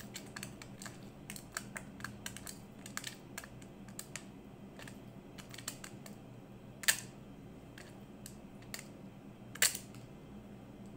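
Irregular light clicks and taps of kitchen utensils being handled during food preparation, with two louder sharp knocks about seven and nine and a half seconds in, over a faint steady hum.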